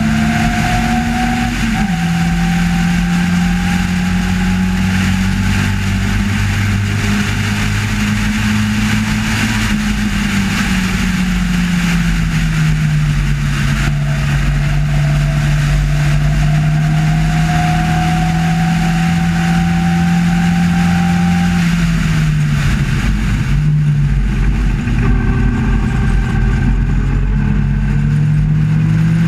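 Onboard engine note of a race car at speed, heard from the cockpit with wind rush over it. The pitch drops suddenly about two seconds in as it shifts up, sags slowly through the middle, dips briefly about 23 seconds in, then rises again under acceleration near the end.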